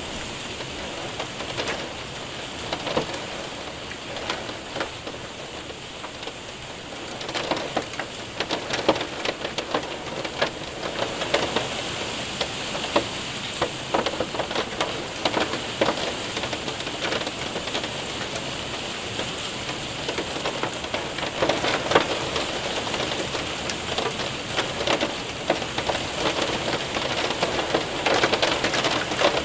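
Hail and rain hitting a window and roof: a steady hiss of rain with many sharp hailstone ticks, which grow denser and louder after several seconds.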